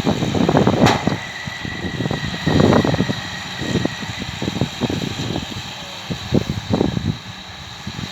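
New Holland T6.180 tractor running while it pulls a round baler through hay. The low rumble rises and falls unevenly, with a sharp click about a second in.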